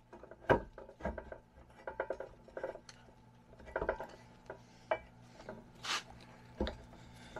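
Scattered metal clinks, taps and rubbing as parts on a Dana 60 steering knuckle are handled and the lower kingpin is run in by hand; the sharpest clink comes about half a second in.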